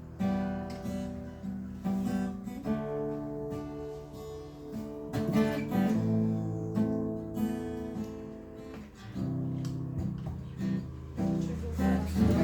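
Acoustic guitar strumming and picking chords in an instrumental introduction, with no voice yet.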